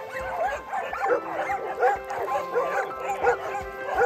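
Several dogs barking and yipping rapidly and overlapping, several barks a second: excited dogs waiting for a toy to be thrown.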